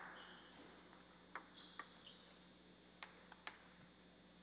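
Table tennis ball bouncing between points: five light, sharp clicks, two about a second and a half in and three about three seconds in, with a few short high squeaks in between.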